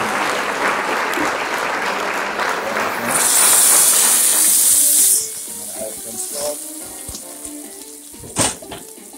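Food sizzling in hot oil in a frying pan, with a louder, higher hiss for about two seconds partway through, after which the sizzle settles low. A single short sharp sound comes near the end, with faint background music.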